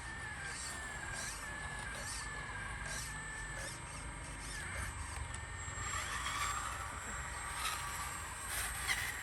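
Small electric motor of a radio-controlled excavator whining with a slightly wavering pitch, with scattered clicks and rattles as the model works.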